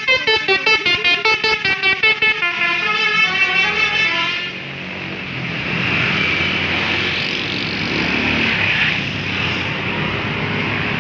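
Bus telolet basuri horn playing a melody: a rapid string of short notes, about five a second, then a few longer stepping notes, stopping about four and a half seconds in. Steady engine and traffic noise follows.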